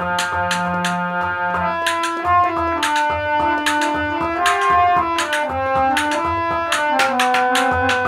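Harmonium playing a melody over a quick, steady beat of finger strikes on a large pot used as a drum. A low held note drops out about two seconds in, and the melody moves on.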